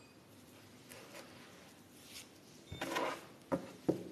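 Quiet room with faint handling sounds: a short rustle a little under three seconds in, then a few light knocks near the end, as of hands handling objects on a table.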